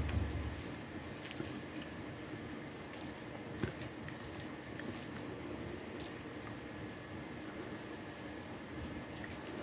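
Faint handling sounds of stone beads being worked onto beading wire: a few small scattered clicks over a faint steady hum.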